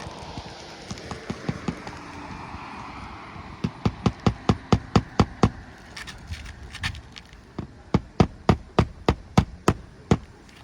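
Hammer driving a roofing nail into an asphalt shingle: a few light taps about a second in, then two quick runs of sharp strikes, about nine starting a little past three and a half seconds in and about eight more starting near eight seconds.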